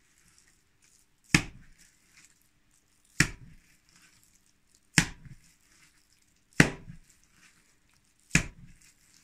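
Mixed pork, beef and chicken mince being slapped down hard, five heavy wet slaps about every two seconds. The mince is being beaten so that it breaks down into fibres and turns sticky enough to hold together.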